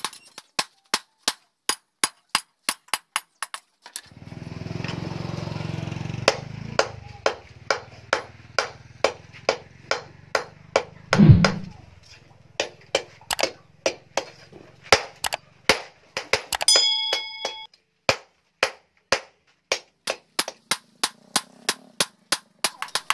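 Hammer blows on a red-hot steel blade over a small steel anvil block, a steady rhythm of about two to three strikes a second. A few seconds in, a stretch of steady rushing noise rises under the blows, a single heavy thump comes about halfway through, and a metallic ring sounds near the end.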